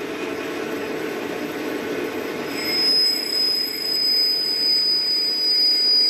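Metal lathe running while a carbide tool cuts a phosphor-bronze bushing. About two and a half seconds in, a steady high-pitched squeal from the cut starts and holds, and the sound gets louder.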